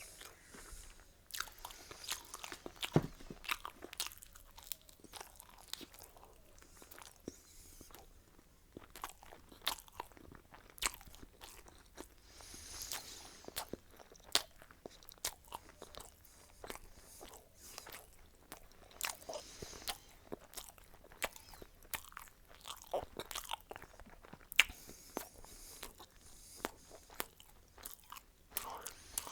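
Close-miked chewing and biting of food, with irregular crisp crunches and sharp wet mouth clicks.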